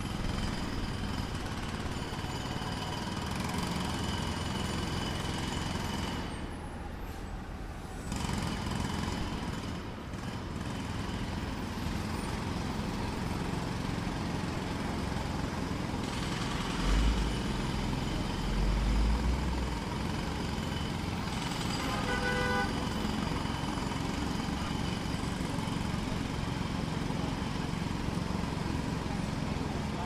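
Large handheld jackhammer (rock drill) hammering steadily in the distance, a continuous rapid chatter with ambient noise around it. A deeper low rumble swells twice for a couple of seconds a little past halfway.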